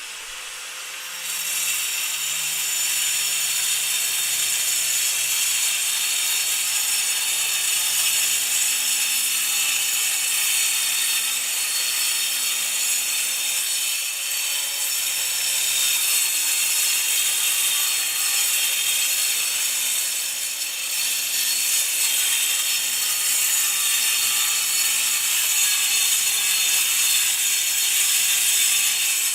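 Angle grinder cutting concrete: a steady, loud, high hiss of the disc grinding through the concrete, growing louder about a second in, with the motor's low hum shifting in pitch under load.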